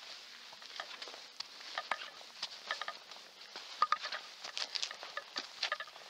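Footsteps scuffing and crunching on gritty stone steps and a dirt path: an irregular string of short steps.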